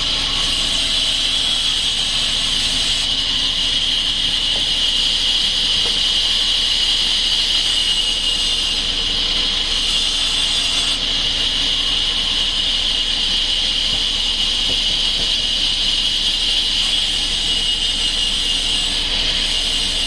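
A large band saw running steadily while its blade rips lengthwise through a log. It makes a continuous high hiss over a lower rushing noise, at an even level with no pauses.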